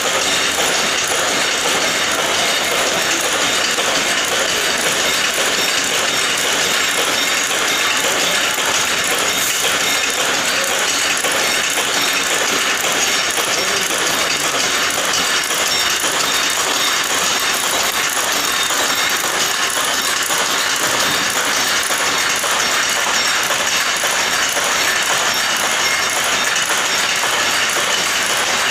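Barbed wire and fence-wire making machinery running: a steady, fast metallic clatter that never pauses.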